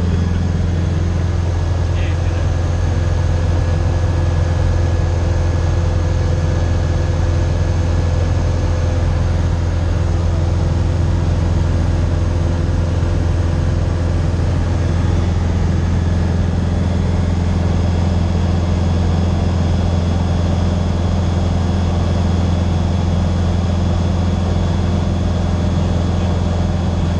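Single-engine light aircraft's engine and propeller droning steadily in cruise, heard inside the cockpit: a loud, unchanging low hum.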